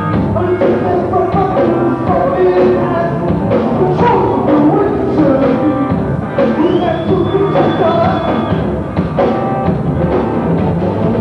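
A rock band playing live, with guitar and a drum kit. A thin high tone is held for about two seconds in the middle.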